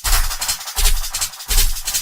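Bass-boosted wrestling entrance theme music in a short break: the heavy bass drops out, leaving bright high-end percussion and a few short low hits.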